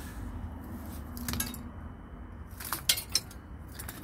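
Light metallic clinks and rattles of burnt metal scraps, melted aluminium fragments among the ash, as a hand sifts through the debris: a couple of clinks about a second in and a quick cluster near three seconds.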